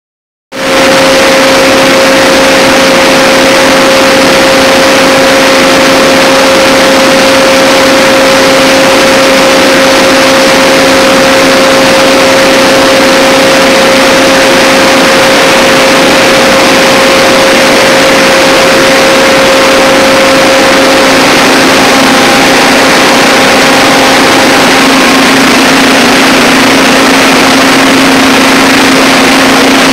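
Diesel generator set running at a steady speed: a loud, even roar with a steady hum through it.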